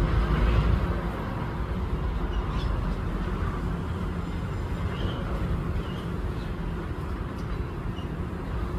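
Steady low outdoor rumble, like traffic, with a handful of faint, short bird chirps scattered through it.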